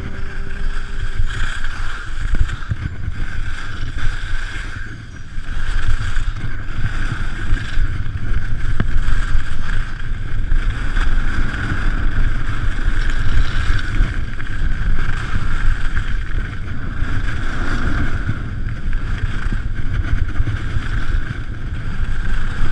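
Wind rushing and buffeting over a GoPro Hero3 camera's microphone during a ski descent, mixed with the hiss of skis running over snow, rising and falling in strength. A song's last notes fade out in the first second or two.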